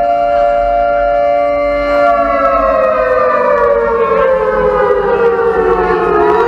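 A loud siren-like synthesizer tone from the dance party's sound system, held on one pitch for about two seconds and then sliding steadily downward. It cuts off suddenly at the end as the electronic dance beat comes in.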